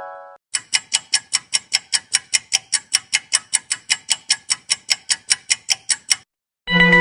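Fast clock-style ticking sound effect: evenly spaced sharp ticks, about five a second, that stop suddenly about a second before the end.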